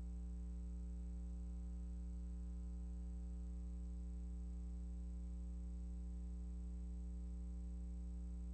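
Steady low electrical hum with several fainter overtones above it and a thin, high-pitched whine, unchanging throughout, with no other sound.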